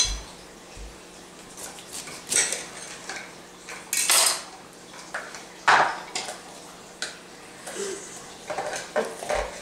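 A knife knocking on a cutting board and kitchen utensils clinking as a red bell pepper is cut up and seeded: irregular knocks and clinks, a few of them louder.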